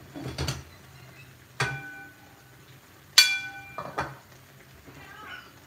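Metal cookware clanking: two sharp knocks about a second and a half apart, each ringing briefly with the same clear tones, the second the loudest, with a few softer knocks around them.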